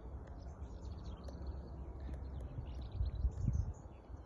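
Several small birds chirping and twittering in quick, overlapping calls, over a low rumble that swells briefly around three seconds in.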